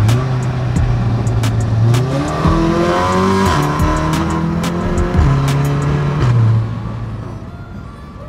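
Stage 3 Volkswagen Golf R's turbocharged 2.0-litre four-cylinder accelerating hard, rising steeply in pitch about two seconds in, then easing off and fading in the last couple of seconds. Music plays faintly underneath.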